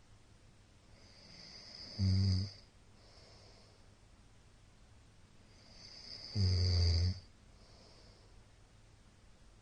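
A middle-aged man snoring in his sleep: two loud, deep, rattling snores about four and a half seconds apart, each building from a rising breath into a short buzzing snore, with a softer breathy exhale after each.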